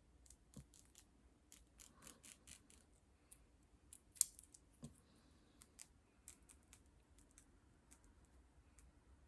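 Scissors snipping through the lace of a lace-front wig: a series of faint, sharp snips, the loudest about four seconds in.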